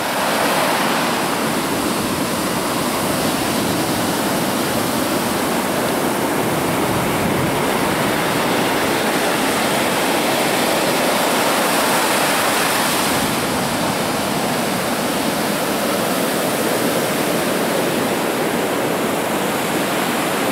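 Heavy surf breaking on the beach, a steady rush of waves and white water.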